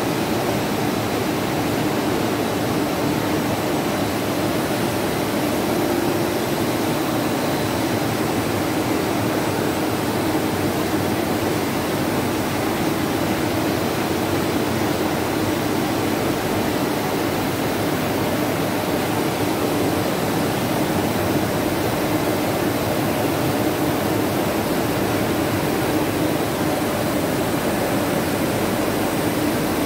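Steady industrial machine noise: a continuous hum with a hiss over it, unchanging throughout.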